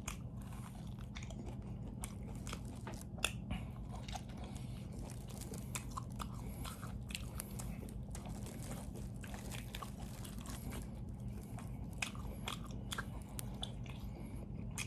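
A person chewing and gnawing on tender braised pig's trotters, with many irregular small wet clicks and smacks of eating. A steady low hum runs underneath.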